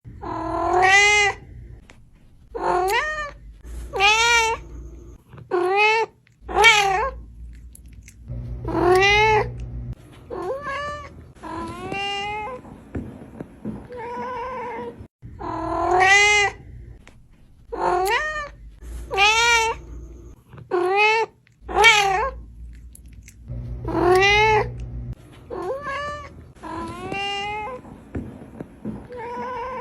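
Cat screaming: a series of loud, drawn-out yowls, each rising and then falling in pitch, repeating every second or two.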